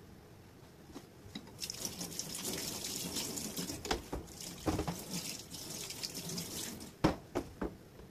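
Tap water running into a stainless steel sink as a cutting board is rinsed under it, with a few knocks of the board against the sink. The water stops near the end and the board is set down with three sharp knocks.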